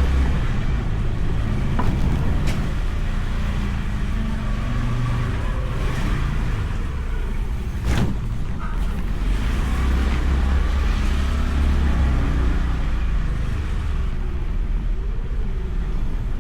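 Motorcycle on the move, heard through a microphone inside the rider's helmet: steady rumble of engine, wind and road. It swells a little in places, and there is one sharp click about eight seconds in.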